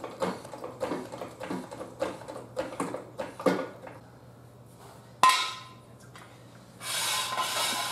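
Floor jack being pumped by its long steel handle, an irregular run of clicks and knocks, two or three a second, as it lifts the front of a car. About five seconds in comes one sharp ringing metal clank, and near the end a metallic clatter, as a steel jack stand is handled and set.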